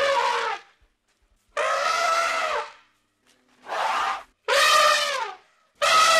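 Elephant trumpeting: about five loud calls in quick succession, each lasting half a second to a second, several dropping in pitch as they end.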